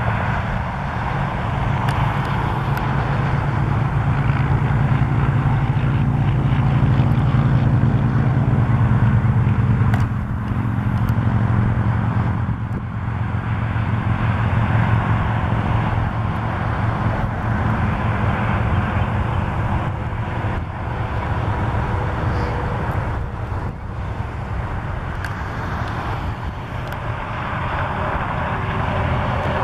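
Steady road-traffic rumble from a nearby highway. It swells up, drops off sharply about ten seconds in, then carries on at a lower, uneven level.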